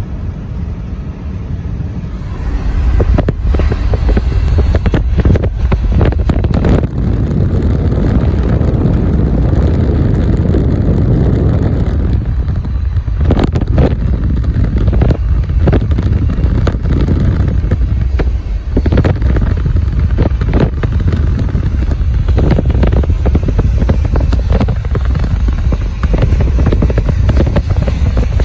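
Wind buffeting the microphone of a moving car, over a low road rumble; it gets much louder about three seconds in and stays loud, with gusty flutters throughout.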